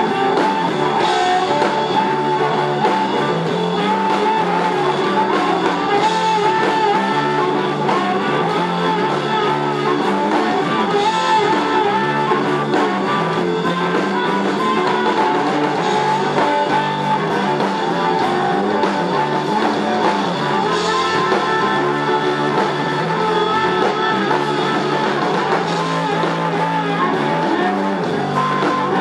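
Live blues-rock band playing: a lead guitar line on a homemade double-neck electric guitar whose body is made from a car muffler, over electric bass and drum kit.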